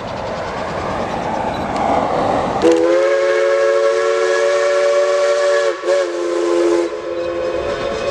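Narrow-gauge steam locomotive's chime whistle sounding one long blast with a brief break near the end, over the hiss and rumble of the passing train.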